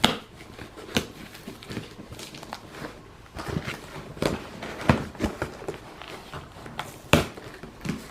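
Hands opening and handling a cardboard shipping box and its packing: irregular knocks, taps and short rustles of cardboard and wrapping.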